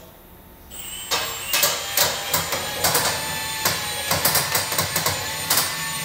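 Cordless drill starting up about a second in and spinning a flat-bladed paddle in a small water tank, a steady motor run with a rapid, irregular clatter as the blade churns the water to work up foam.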